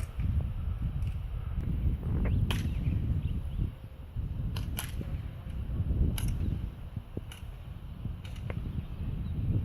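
Several sharp airsoft gun shots at irregular intervals, over steady wind rumble on the microphone.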